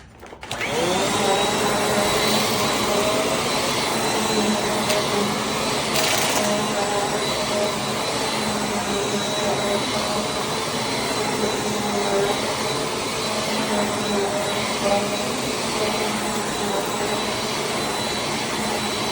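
Bissell CleanView Compact Turbo upright vacuum switched on about half a second in, its motor spinning up with a short rising whine, then running steadily as it is pushed over an area rug.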